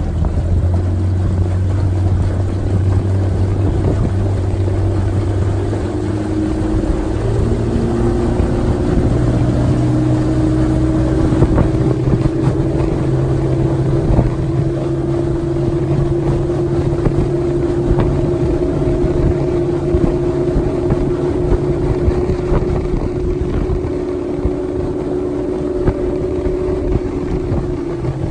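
Outboard motor of a small aluminium boat running under way, its pitch rising about a quarter of the way through and then holding steady.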